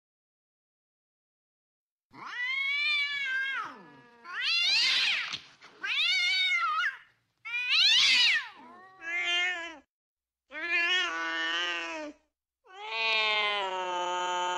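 Cats caterwauling: a series of about seven long, wavering yowls starting about two seconds in, the last one drawn out and steady. These are the yowling cries of cats mating.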